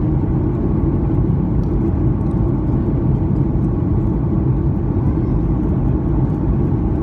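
Steady cabin roar of a Boeing 737 airliner in descent, heard from a seat beside the wing: jet engine and rushing airflow noise, an even low rumble.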